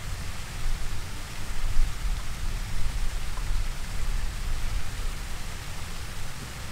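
Steady rushing hiss with uneven low rumbling gusts, typical of wind buffeting an outdoor microphone.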